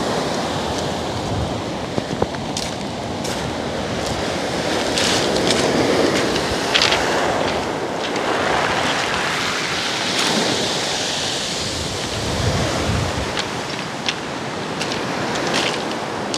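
Surf breaking and washing up a pebble beach, rising and falling as the waves come in. Scattered sharp clicks come through it, more of them near the end.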